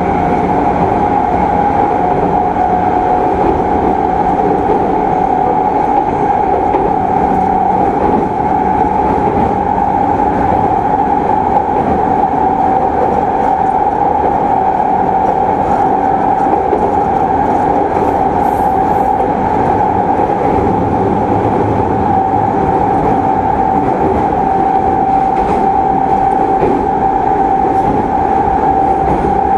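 Onboard running sound of a JR East E217 series electric train, equipment-updated motor car MoHa E216-2020, travelling at a steady speed: constant rolling noise with a steady high whine held at nearly the same pitch.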